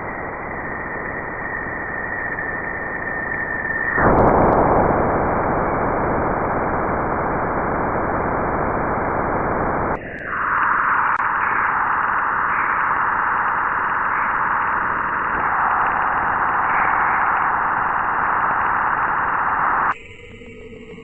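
Space sounds of planets, radio and plasma-wave emissions turned into audio: a steady hissing static with a thin high tone, switching abruptly to a louder, coarser hiss about four seconds in, then about ten seconds in to a higher, narrower rushing hiss. Near the end it changes again to a quieter sound with several steady tones.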